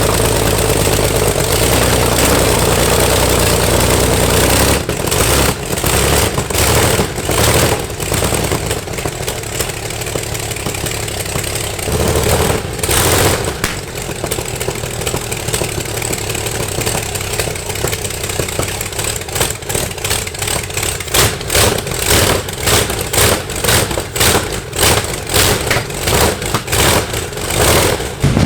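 A car engine idling steadily, then run unevenly with repeated short throttle blips that come faster toward the end.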